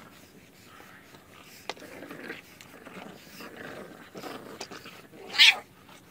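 English bulldog puppies playing tug-of-war over a plush toy, making soft scattered noises, then one puppy gives a single brief, loud, high-pitched yelp about five seconds in.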